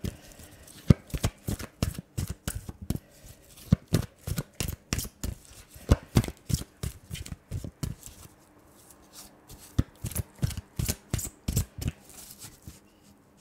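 A deck of cards being shuffled by hand: a quick, uneven run of short card slaps and flicks, several a second, thinning out and growing softer after about eight seconds.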